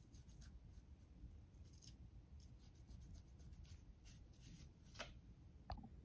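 Near silence with faint, light crinkles and ticks of fingers pressing thin copper leaf onto a rope of polymer clay, and a couple of slightly louder small taps near the end.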